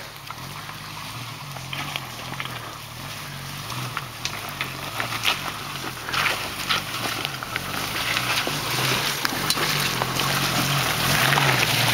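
Jeep Cherokee XJ crawling uphill in four-wheel-drive low, its engine running low and steady and growing louder as it comes closer. Scattered cracks and crunches from the tyres working over the ground.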